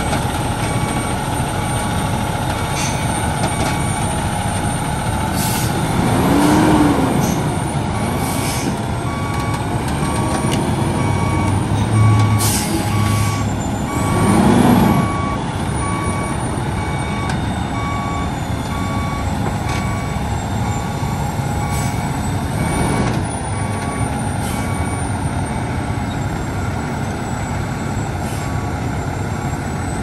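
Ready-mix concrete mixer truck reversing. Its diesel engine runs under the steady repeating beep of the backup alarm, with short air-brake hisses now and then. The engine swells and falls back twice as the truck works its way backward over the curb.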